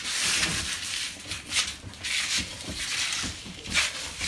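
Two men grunting and breathing hard as they strain against a large cardboard box stuck in a doorway, with the cardboard rubbing and scraping as they push.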